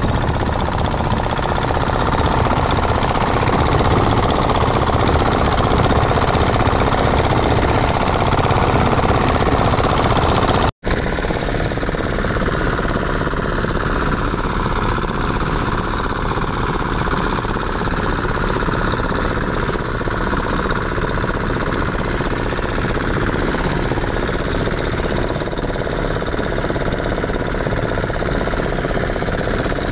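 Outrigger fishing boat's engine running steadily under way, mixed with the rush of its wake water. The sound breaks off for a split second about eleven seconds in, then carries on.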